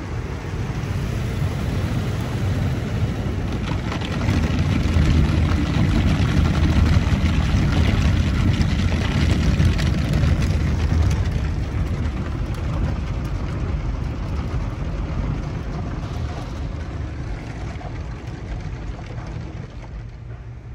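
Ryko SoftGloss MAXX soft-touch automatic car wash spraying and scrubbing a car, heard from inside the cabin as a steady, rumbling wash of water and cloth brushes on the body. It grows louder about four seconds in and eases off gradually over the last several seconds.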